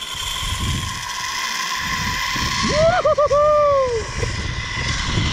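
Zip-line trolley pulleys running fast along the steel cable with a steady whine, over wind rushing on the microphone. About three seconds in, the rider lets out a long wavering whoop that rises and then falls away.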